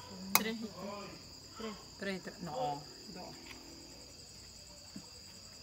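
Crickets chirring steadily in a high, unbroken tone, with a single sharp click about half a second in and a few brief murmured words in the first three seconds.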